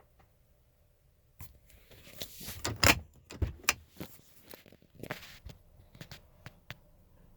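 A bunch of keys jangling and clicking as the ignition key is worked in a 2008 Chevrolet Avalanche: an irregular run of clicks and rattles. The engine does not crank.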